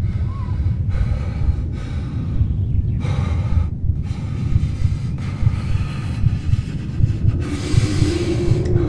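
A man breathing heavily, several deep breaths with a longer one near the end, over a steady deep rumble.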